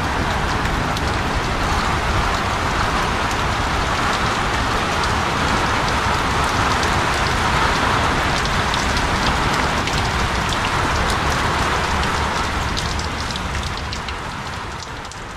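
Rain falling steadily, with many sharp ticks of drops striking close by, fading out over the last couple of seconds.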